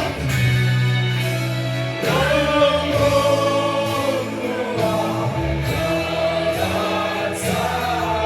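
Music: a song with several voices singing long held notes over instruments and a steady bass line, in the style of choir or gospel singing.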